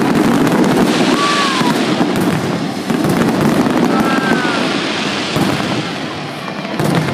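Fireworks bursting and crackling in rapid succession. Two short whistles sound over the crackle, about a second in and about four seconds in.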